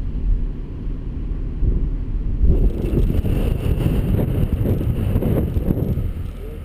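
Car driving slowly, recorded from on board: a low, uneven engine and road rumble with wind buffeting the microphone, growing louder about two and a half seconds in.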